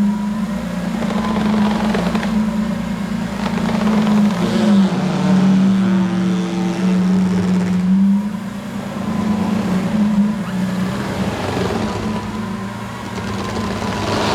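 Lamborghini Countach LPI 800-4's V12 engine running at steady, moderate revs while driving: a constant drone whose pitch dips and rises slightly a few times.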